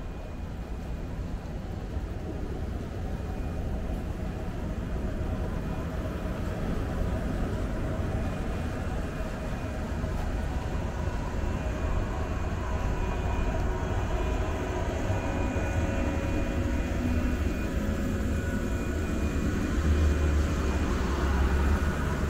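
JR 115-series electric train pulling out, its motors and wheels growing steadily louder as it moves off.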